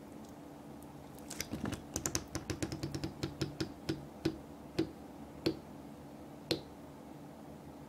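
Green slime settling in a small plastic barrel, trapped air popping out of it in small clicks, quick and crowded at first, then slowing to single pops about half a second apart before stopping.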